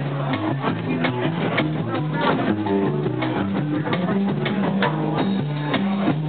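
Live small-group jazz: an upright double bass walks a line of plucked notes, stepping to a new pitch several times a second, under steady drum-kit cymbal and drum strokes.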